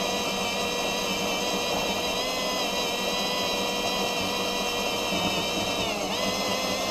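Power drill motor running with a steady whine as a twist bit bores into a welded steel plate; the pitch dips briefly about six seconds in, then comes back up.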